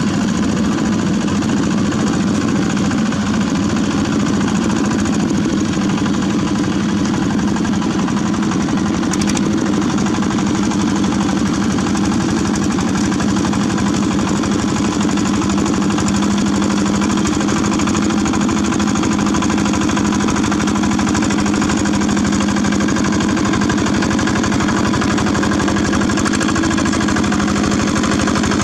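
Single-cylinder diesel engine of a two-wheel walking tractor running steadily while its rotary tiller churns through wet paddy mud.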